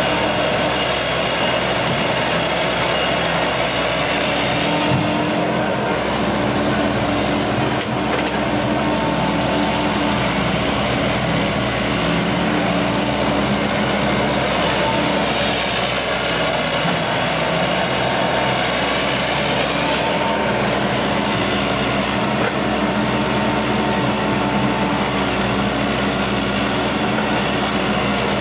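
Diesel engines of an excavator and a dump truck running steadily as the excavator digs soil and loads the truck, the engine note shifting a little with the load.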